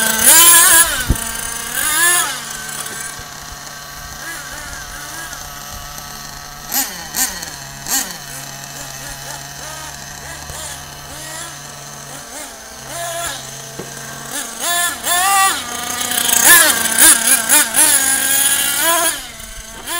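Small nitro engine of a Thunder Tiger RTA4 S28 short-course RC truck revving up and down in quick surges as the truck drives the dirt track. It is loudest at the start and again over the last few seconds, and quieter and steadier in between while the truck is farther away.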